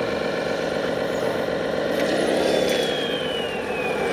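Radio-controlled scale Ural truck running as it crawls over rocks, a steady engine-like drone. A thin whine falls in pitch over the last second and a half.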